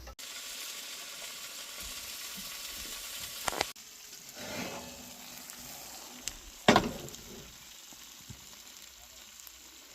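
Food sizzling steadily while it cooks, broken off by a cut a little over a third of the way in; then a few sharp knocks of kitchenware, the loudest about two thirds of the way in, over a fainter sizzle.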